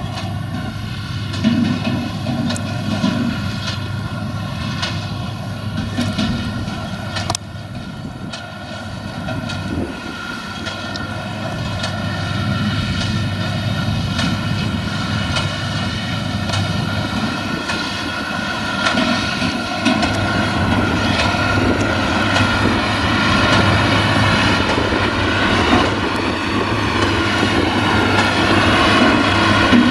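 Claas Arion tractor's diesel engine running steadily under load as it pulls a baler along a straw windrow, with a few sharp knocks early on. It grows louder toward the end as the tractor comes closer.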